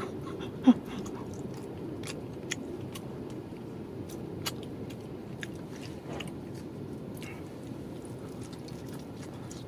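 A person chewing and biting food, with scattered small clicks and one sharper click about a second in, over a steady low rush of background noise.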